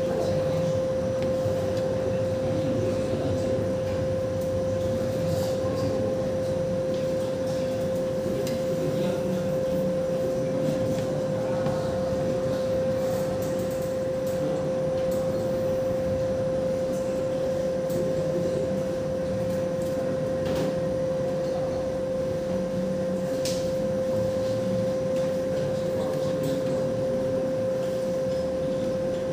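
Steady machine hum in a machine shop, one unbroken held tone over a low rumbling noise.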